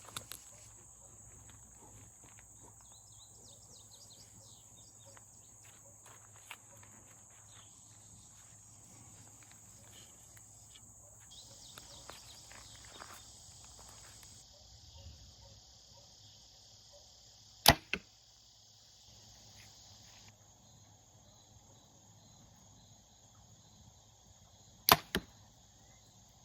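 Two bow shots about seven seconds apart, each a sharp loud snap of the released string followed about a third of a second later by a second, softer crack. Under them, insects buzz steadily at a high pitch.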